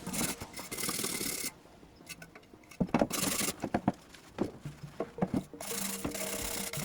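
Rubbing and scraping strokes on a hard surface in three spells, with scattered clicks and knocks between them.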